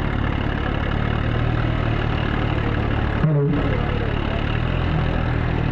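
Sonalika and Swaraj tractor diesel engines running hard under load as the two tractors pull against each other in a tug-of-war, a continuous low drone. The sound breaks off briefly a little past three seconds in, then carries on.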